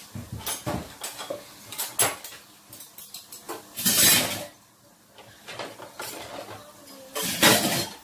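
Metal cookware and utensils clattering: a run of knocks and clinks, with two louder, longer rattles about four seconds in and near the end.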